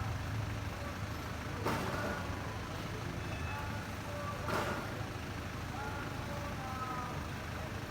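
A steady low engine rumble with two sharp knocks, one just under two seconds in and one about halfway through.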